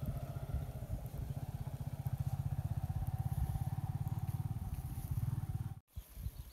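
A small engine running off-screen with a rapid, even pulse. It cuts off suddenly near the end.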